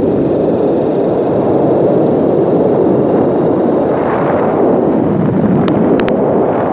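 Steady loud rushing of wind buffeting the microphone, mixed with the running noise of the moving vehicle, with a few faint clicks about six seconds in.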